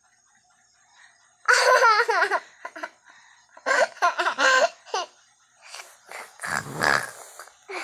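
A young girl laughing in several bursts, starting about a second and a half in after a quiet moment.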